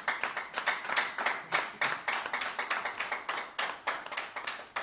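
A small group of people clapping by hand, a scattered run of claps that thins out near the end.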